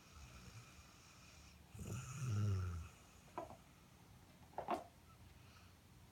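Airedale terrier snoring in its sleep: one long, low snore about two seconds in, followed by two short, sharp sounds.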